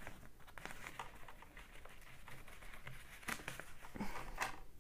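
Faint rustling of a fabric pouch with clear plastic pockets, with scattered light clicks as small plastic toy fence pieces are handled and tucked into it.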